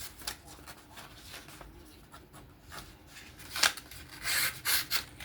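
A knife blade drawn across a surface in a few short, hissing strokes, the loudest about three and a half seconds in and a quick cluster near the end, with fainter scraping before them.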